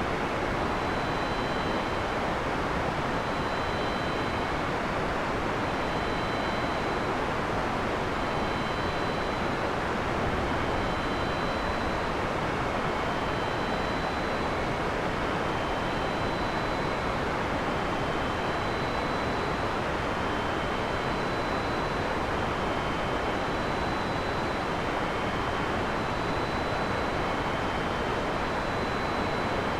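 Heavy rain falling steadily, an even hiss with no thunder in it. Faint short high-pitched tones recur every two seconds or so over the rain.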